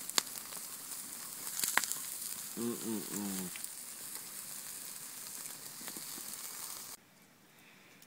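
Pork chops and tomatoes sizzling in a wire grill basket over glowing campfire embers, with sharp crackles and pops from the fire. The sizzling cuts off suddenly about seven seconds in, leaving it much quieter.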